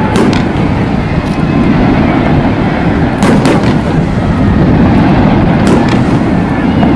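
Fireworks display: a loud continuous booming rumble of shells bursting, with sharp cracking reports near the start, around three seconds in and near six seconds.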